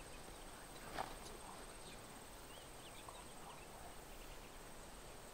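Quiet outdoor ambience: faint hiss with a steady faint high-pitched whine, a few faint distant bird chirps, and one soft tick about a second in.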